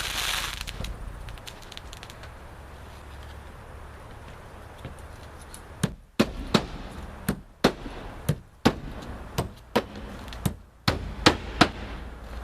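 Nails being driven through tarpaper roofing felt into the roof deck: about a dozen sharp strikes, some in quick pairs, starting about six seconds in.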